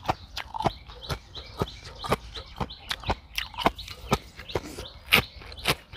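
Close-miked chewing of crunchy raw vegetables and spicy papaya salad: wet, crisp mouth clicks and lip-smacks about three times a second.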